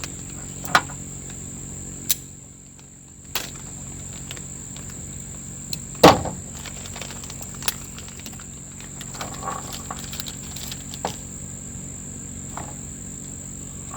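Steady high-pitched chirring of crickets, with a few scattered clicks and knocks from parts being handled. The loudest knock comes about six seconds in.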